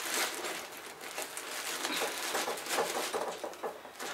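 Scraping and brushing dirt off a wooden bumblebee nest box with a scraper and a stiff brush: a run of irregular short scratchy strokes.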